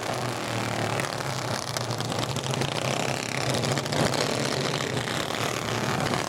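Several racing go-kart engines running together as the pack circles a dirt track, a steady engine note with a rough noisy layer over it.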